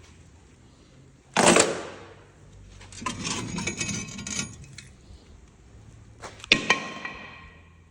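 Metal tools and brake parts being handled: a short scraping rush about a second and a half in, metal pieces rattling and clinking, then a sharp metallic clang near the end that rings out.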